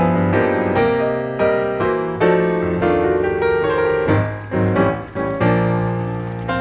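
Background piano music, a gentle melody of notes and chords struck about twice a second.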